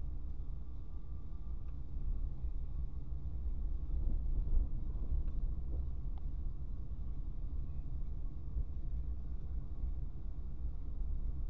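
Car interior noise picked up by a dashboard camera while driving: a steady low engine and tyre rumble, with a few faint knocks around the middle.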